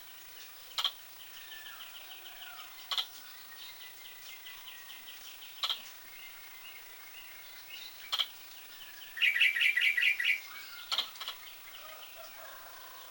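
A squirrel hiccuping: short sharp clicks about every two and a half seconds, five in all. Birds chirp and trill throughout, with a loud run of rapid chirps about nine seconds in.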